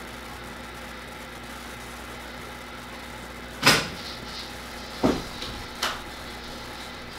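Three sudden knocks about halfway through, roughly a second apart, the first the loudest, over a steady low household hum.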